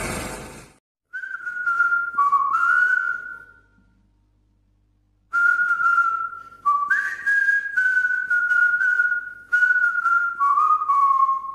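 A person whistling a short tune in two phrases: a brief one, then after a pause of about two seconds a longer one that steps up and down through several notes. In the first second, helicopter noise cuts off abruptly.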